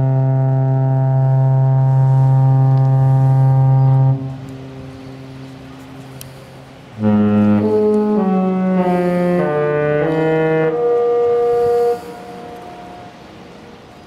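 Disney Magic cruise ship's horn: one long steady blast of about four seconds, then a few seconds later a short tune of several notes played on the horn, ending on a held note. Each part trails off in an echo.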